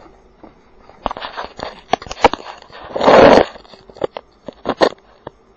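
A lawn mower's pull cord yanked once about three seconds in, giving a loud half-second rushing whirr, and the engine does not catch. Around it are scattered clicks and knocks.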